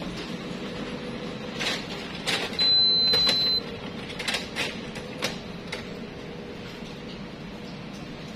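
Canon imageRUNNER ADVANCE 4235i copier running with a steady hum, with a handful of clicks and knocks about two to six seconds in and one high beep lasting about a second, about three seconds in.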